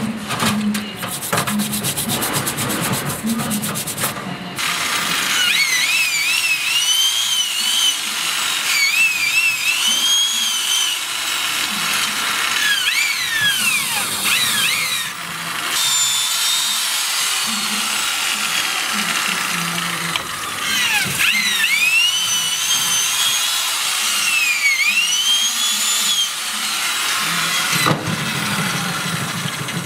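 Electric drill spinning a bit inside the cylinder of a Yamaha R1Z250 two-stroke engine, cleaning the seized cylinder. Its whine swoops up and down again and again as the speed changes.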